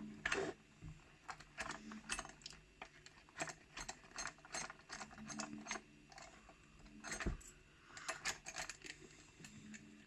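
Small flathead screwdriver working a screw on a rim cylinder lock: irregular light metallic clicks, taps and scrapes of the tool and lock parts being handled, with one heavier knock about seven seconds in.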